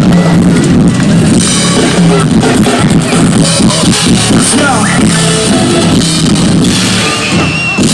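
Loud music with a driving drum beat and steady bass, played through a festival stage's PA speakers and heard from within the crowd.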